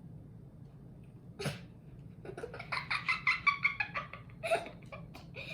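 A child laughing: a run of quick, pitched giggles from about two seconds in, after one short sharp sound about a second and a half in.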